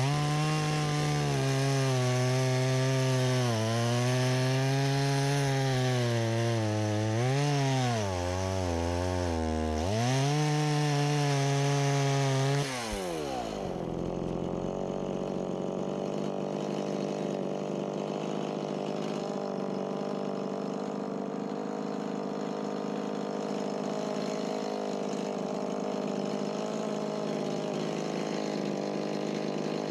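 Stihl MS170 two-stroke chainsaw running at full throttle, its pitch dipping several times as it bogs under load in the cut. About thirteen seconds in the revs fall off and it settles to a steady, quieter idle.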